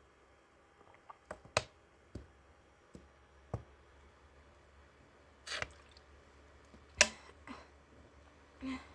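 Sharp clicks and taps from a soda container being handled, then three short mouth-and-throat sounds of drinking, the last a short low burp.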